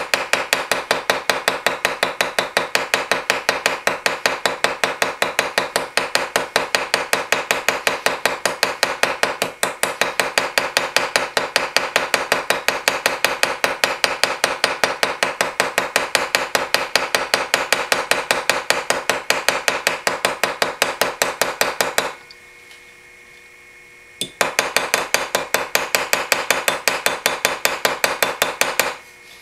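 Small peening hammer lightly and rapidly tapping the end of a pin through a straight razor's scales, held over the anvil of a steel bench vise, at about four or five taps a second with a bright metallic ring. The pin is being peened to tighten it gently. The tapping pauses for about two seconds near the end, then resumes.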